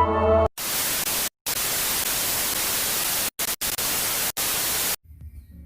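Loud static hiss, broken by a few brief silent gaps and cutting off sharply about five seconds in. Flute music ends just as it begins.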